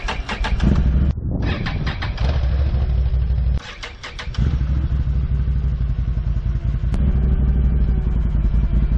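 A Can-Am Outlander 1000R's 976 cc Rotax V-twin cranks and fires up, then runs steadily. About three and a half seconds in it drops away and cranks into life again, then settles into a steady idle.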